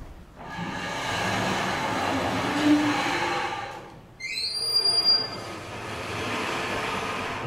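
Vertically sliding chalkboard panels being pulled along their tracks: a rolling, rushing rumble for about three and a half seconds, a brief high squeal about four seconds in, then more rolling noise as the board comes down.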